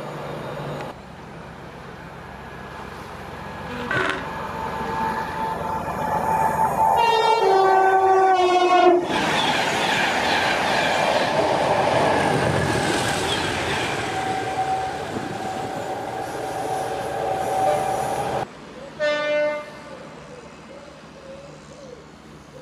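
A train sounds its horn, and the horn's pitch drops as the train draws level. The loud noise of the train passing at speed follows for about nine seconds and stops abruptly. After that, another short horn blast sounds.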